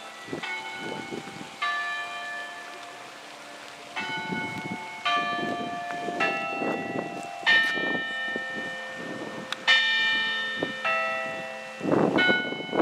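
Tower bells chiming a slow tune: separate struck notes of different pitches, about one a second, each ringing on under the next.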